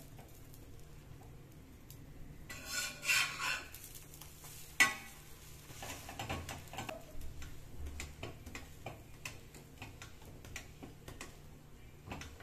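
Steel spatula scraping and clinking on an iron tawa as a ghee-fried sandwich is turned over, with one sharp metal clank about five seconds in, then light taps and scrapes as it is pressed down; ghee sizzles underneath.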